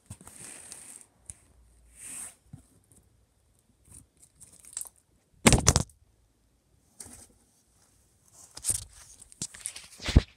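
Scattered crackly handling noises close to a phone's microphone, with a loud bump about five and a half seconds in and another near the end, as the phone is picked up and moved.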